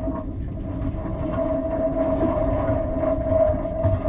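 Boat engine running steadily: an even hum with a constant tone over a low rumble.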